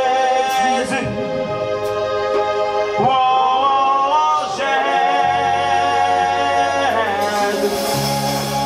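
A man singing a gospel worship chant through a PA, holding long, drawn-out notes over a live band, with low bass notes coming in about five seconds in.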